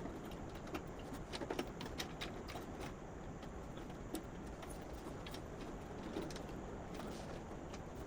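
Scattered light clicks and taps of hands handling cables and plastic parts inside a server case, with a small run of clicks about a second and a half in, over a steady low background hum.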